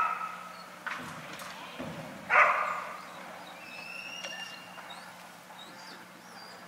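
A dog barks once, short and sharp, about two and a half seconds in, over a faint steady hum. Faint thin high whistles follow a second or two later.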